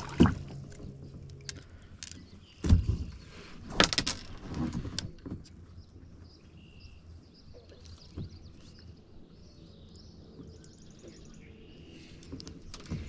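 A few sharp knocks and clunks of fishing gear handled against a kayak hull, loudest in the first four seconds, then faint bird chirps.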